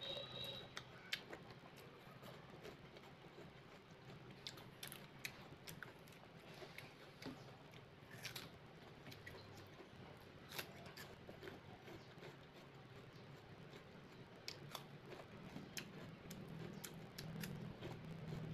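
Faint chewing of crisp wax apple, with scattered small crunches and clicks as bites are taken.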